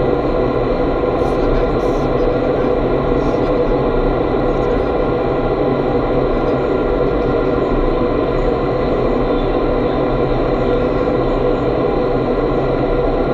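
Vertical wind tunnel for indoor skydiving running: a steady rush of air from the tunnel's fans, with a constant hum running through it.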